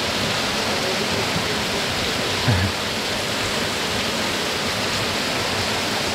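Waterfall pouring close by: a steady, even rush of falling water and spray. A brief low thump about halfway through.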